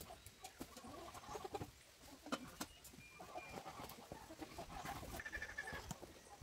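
Farm animals calling faintly, hens clucking among them, in two spells of short calls with a higher, held call a little before the end.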